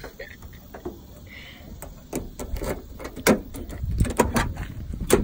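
Car door being unlocked with a key and opened: a run of sharp clicks and clunks from the key turning in the lock and the door handle, the loudest about three seconds in and again near the end.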